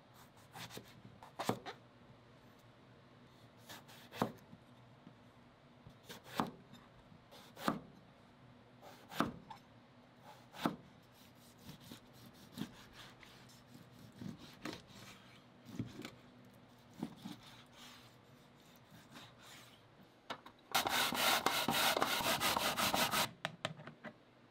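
Kitchen knife cutting eggplants on a cutting board, with a sharp knock every second or two, then softer strokes slicing chicken breast. Near the end come about two and a half seconds of loud, rapid rasping as daikon radish is grated on a plastic grater.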